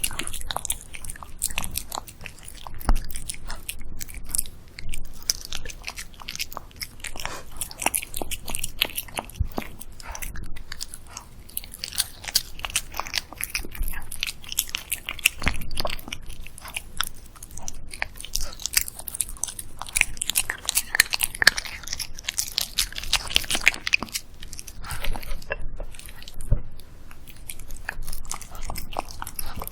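A dog eating close to the microphone: an uneven run of chewing, biting and mouth smacks as it works through a homemade dish of kabocha pumpkin, beef, egg and apple.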